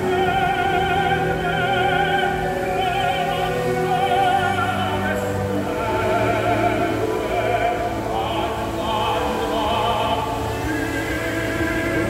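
Operatic singing with orchestral accompaniment, the voice holding long notes with wide vibrato.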